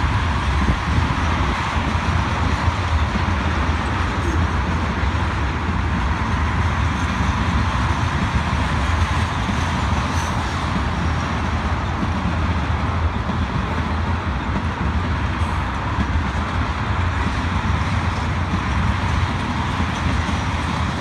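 Freight train tank cars rolling past: a steady low rumble of steel wheels on the rails, with a few faint clicks.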